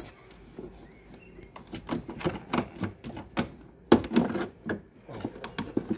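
Hard plastic clicking and knocking as a Ford C-Max tail lamp is levered and pulled out of its plastic retaining clips: a run of irregular clicks and rattles, the sharpest about four seconds in.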